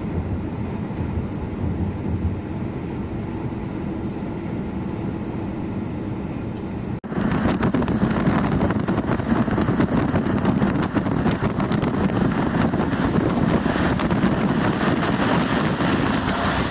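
Truck driving, heard from inside the cab: a steady low engine drone with road noise. About seven seconds in there is a sudden break, after which the noise is louder, with more hiss.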